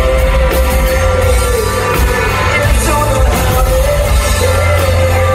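A rock band playing live through a venue's PA, with electric guitar, drums and singing, heard from the audience.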